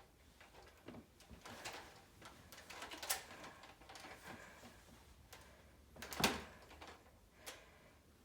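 A few faint, scattered clicks and knocks in a small room, a couple of seconds apart, the loudest about six seconds in.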